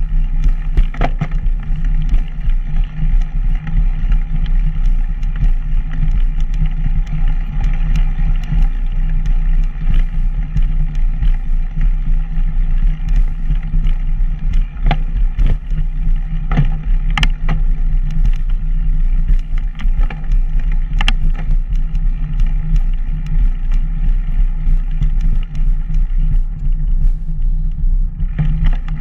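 Steady loud rumble and vibration noise from a camera mounted on something moving along a concrete path, with scattered sharp clicks and rattles.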